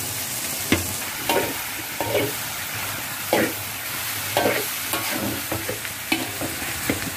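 Rice frying in a wok, a steady sizzle, while a metal fork stirs it into the chicken and vegetables, scraping and clacking against the pan about once a second.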